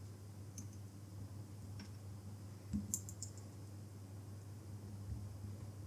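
A few faint, short clicks and taps of a smartphone battery being handled and fitted into the phone, over a steady low hum.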